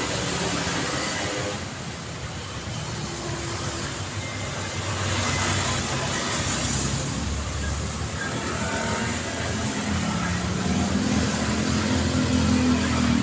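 Road traffic: cars passing, with steady tyre and engine noise. About ten seconds in, the hum of an approaching engine grows louder.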